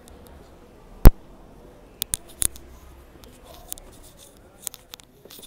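Entering a shop: one loud, sharp click about a second in, then scattered lighter clicks and taps from the door and from footsteps on stone stairs.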